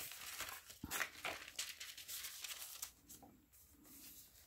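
Paper rustling and crinkling as the pages and tags of a handmade junk journal are turned and handled: a run of brief swishes that fades out about three seconds in.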